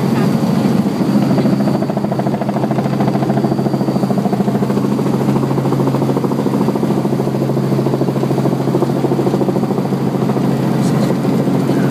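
Helicopter's engine and rotor, heard from inside the cabin: a steady drone with a fast, even blade beat, running at landing-approach power.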